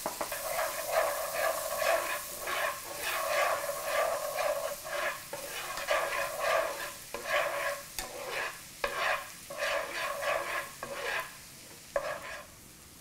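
Minced garlic sizzling in butter and oil in a nonstick pan while a metal spoon stirs and scrapes it in quick repeated strokes, with a few sharper knocks; the garlic is frying toward golden brown. The stirring stops shortly before the end.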